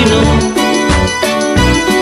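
Background music: an instrumental stretch of a Slovak-language song, with sustained notes over bass and percussion.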